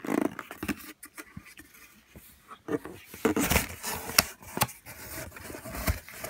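Packaging being handled and opened by hand: irregular scraping, rustling and sharp knocks of cardboard and plastic, busiest about halfway through.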